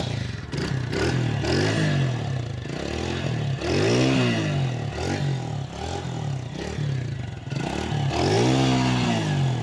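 Motorcycle engine, freshly serviced, idling and being revved by hand: a few short blips of the throttle, then two bigger revs that rise and fall, about four seconds in and again near the end. It runs well, 'totally fine' after the service.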